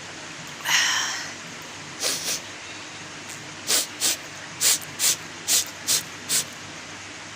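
A person's breath: a longer, loud breathy burst about a second in, then a run of about eight short, sharp breathy puffs about half a second apart.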